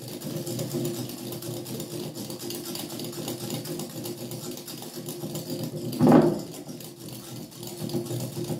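Wire hand whisk beating eggs and sugar in a glass bowl, a fast steady run of strokes clattering against the bowl as the sugar is whisked until it dissolves. About six seconds in, one brief louder knock.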